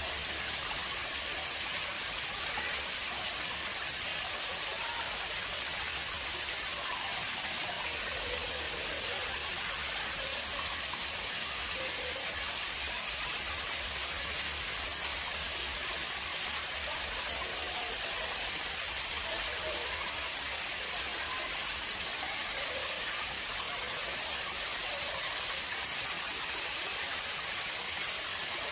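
Water flowing and splashing steadily into a man-made garden pond, an even hiss-like rush without breaks.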